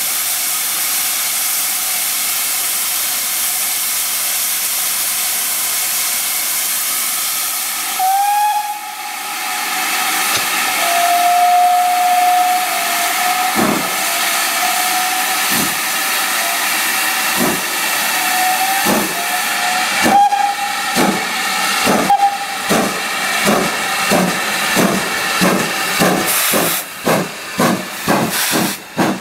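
GWR Manor-class 4-6-0 steam locomotive 7822 hissing steam at a standstill, then sounding a long whistle note. It starts away with slow, separate exhaust beats that quicken to about three a second as it picks up speed past the camera.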